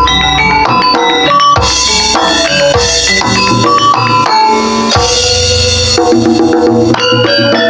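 Music accompanying a Remo dance: heavy drumming under many quick melodic notes, with bright shimmering bursts about two seconds in and again about five seconds in.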